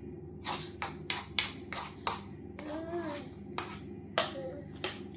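A baby banging on a plastic high-chair tray: about eight sharp, irregular slaps in four seconds. Two short, high vocal sounds from the baby come in between.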